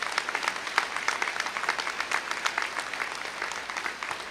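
A large crowd applauding, many hands clapping at once at a steady level.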